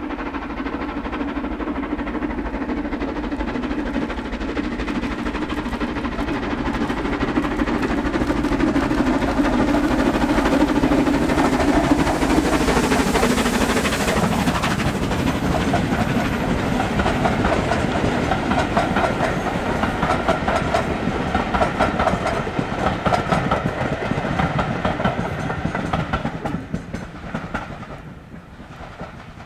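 Three-cylinder steam locomotive 46100 'Royal Scot' working hard past with a heavy exhaust. Its pitch drops as the engine goes by about halfway through. Its train of coaches then runs past and fades out near the end.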